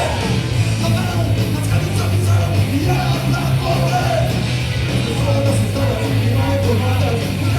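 Loud punk rock song: distorted guitars, driving bass and a shouted vocal.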